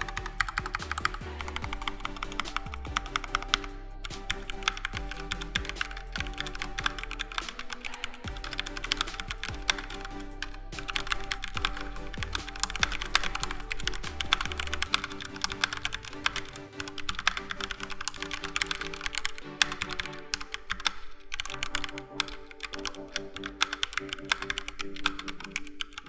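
Typing on a Keychron K4 v2 mechanical keyboard with Gateron Brown tactile switches: a fast, continuous run of key clacks with a few short pauses, over background music.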